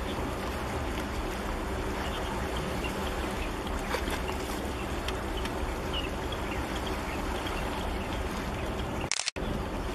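Steady low rumble of a large container ship passing close by, over water sloshing and trickling among concrete breakwater blocks. Near the end the sound cuts out for a moment, just after a short hiss.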